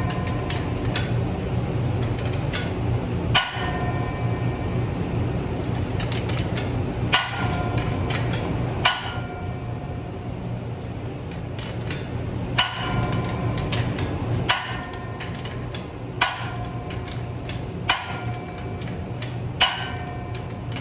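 Sharp metallic clanks, each with a brief ringing tone, coming about every two seconds at an uneven pace, over a steady low hum: steel tools working on a bolt being torqued to 250 foot-pounds.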